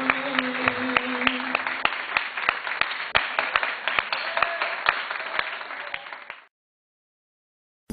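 Audience applause with many separate hand claps, thinning and fading out about six seconds in, then cut to dead silence.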